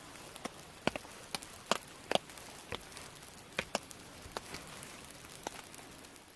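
Raindrops tapping on a tarp overhead: irregular sharp taps of varying loudness over a steady faint hiss of rain.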